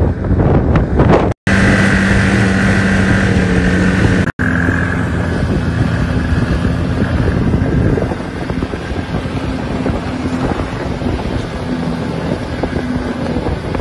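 Snowmobile engine running at a steady drone while riding across snow, with wind buffeting the microphone. The sound cuts out abruptly twice in the first few seconds.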